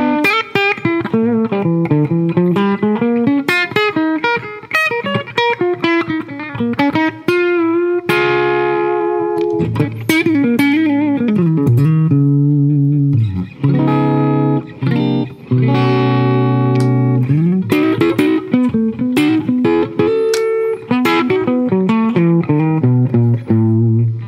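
Hollow-body electric guitar played through an engaged Fairfield Circuitry Accountant compressor pedal: quick runs of single picked notes, with longer chords left to ring in the middle stretch before quick lines return.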